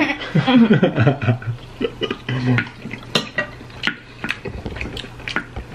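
Spoons clinking and scraping on dinner plates while people eat: a scatter of short, sharp clicks, with a few brief murmurs in the first two seconds or so.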